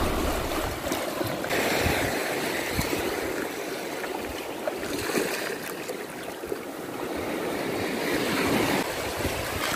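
Shallow sea water washing and lapping around reef rocks at low tide, a steady rushing that swells and eases.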